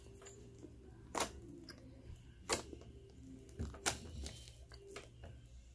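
Several sharp clicks and pops, roughly one every second or so, from slime being squeezed and poked in the hand, over faint background music.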